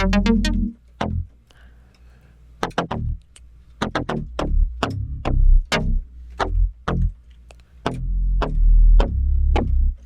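Omnisphere software synthesizer playing an MKS JP-style analog patch: a run of short plucky notes, each with a sharp attack and quick decay, over held low bass notes. The notes thin out for about a second and a half near the start, then pick up again.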